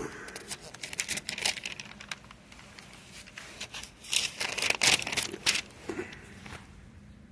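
Paper pages being flipped and rustled, a series of irregular crinkling strokes that are loudest about four to five seconds in, as someone leafs through to find a Bible passage.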